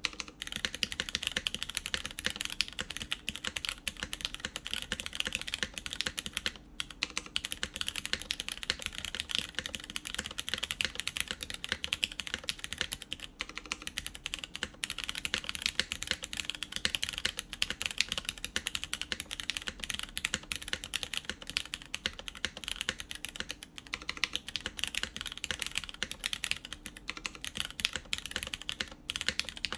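Steady fast typing on a BeatLab Solar80 mechanical keyboard with lubed Cherry MX Brown tactile switches in an aluminum plate and GMK keycaps: a dense run of key clacks, broken by a few brief pauses.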